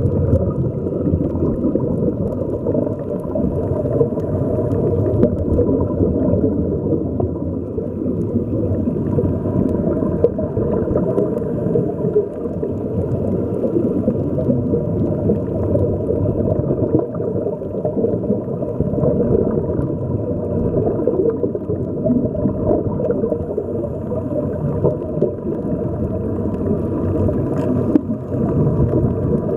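Steady, muffled underwater rumble with gurgling air bubbles escaping from the air-fed sea-walking helmets.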